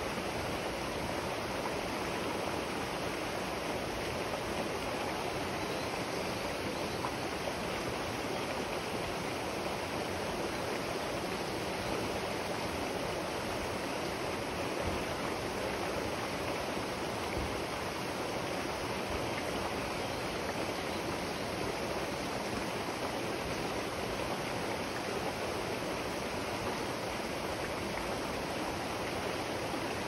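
River water flowing steadily, a constant even rush with no let-up.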